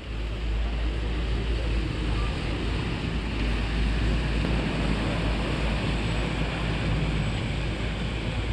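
Steady wind noise on the microphone: a low rumble under an even hiss of open-air ambience.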